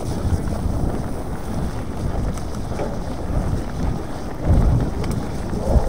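Wind buffeting an action camera's microphone while a mountain bike rolls along a trail, giving a steady low rumble with heavier jolts about four and a half seconds in and again near the end.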